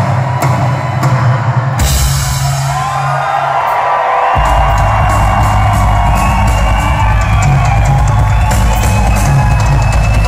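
Rock drum kit played solo: sharp, evenly spaced strikes, then a cymbal crash about two seconds in, and from about four seconds a dense, heavy rumble of bass drum and toms. Audience whoops and whistles sound over it.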